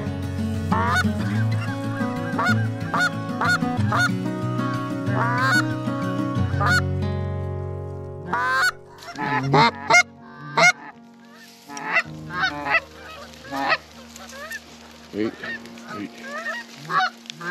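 Canada geese honking: a flock calling thickly over one another for the first half, fading out about eight seconds in, then single honks every second or so from a few birds.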